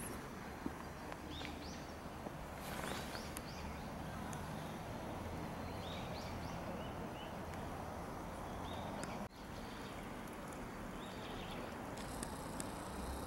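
Outdoor garden ambience: a steady hiss with short bird chirps now and then. The sound drops out for a moment about nine seconds in.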